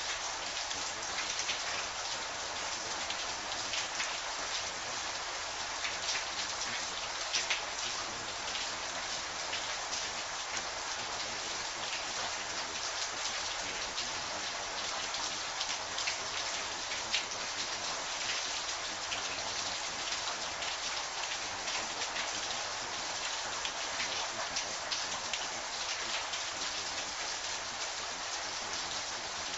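Steady rain: a constant hiss of falling rain with many individual drops ticking sharply on a surface.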